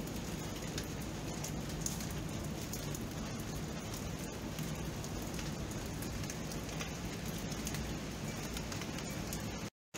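Steady rain falling, an even hiss with scattered small drop ticks. The sound cuts out completely for a fraction of a second near the end.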